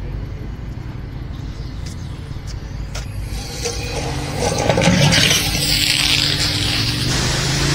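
Pressure washer running: a steady motor hum under a loud hiss of water spray, which starts about three seconds in and grows louder, used to clean a mud-caked e-bike.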